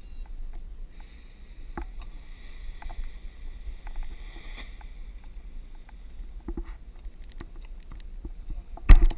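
Wind rumbling on an action camera's microphone, with light rustling and scattered small clicks, and a loud knock near the end.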